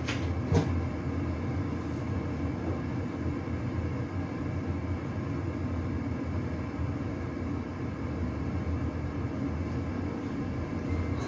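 Steady low droning background hum with no one working at the bowl, and a few faint clicks in the first two seconds.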